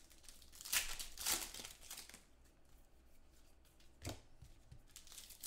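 Foil trading-card pack wrapper crinkling as it is handled, in a couple of bursts of rustling, with a single tap about four seconds in.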